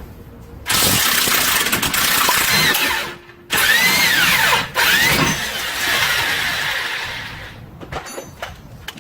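Power tool running in three long bursts, its motor pitch rising and falling with the trigger, as it undoes a bolt on a van's rear suspension to free the coil spring.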